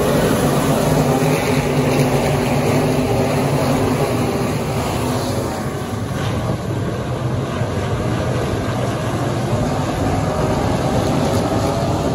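A field of limited modified dirt-track race cars running their V8 engines at racing speed, a steady layered drone of many engines. It is loudest at first as the pack passes close, eases off a little midway as the field moves to the far side of the track, then holds steady.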